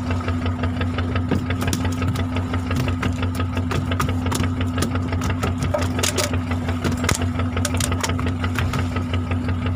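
Fishing boat's engine running steadily: a low even hum with a fast, regular clatter over it.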